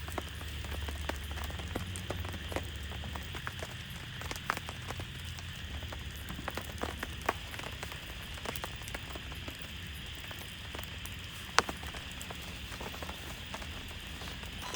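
Rain falling steadily on a surface, with many scattered sharp drop hits over a constant hiss. One hit about eleven and a half seconds in is much louder than the rest.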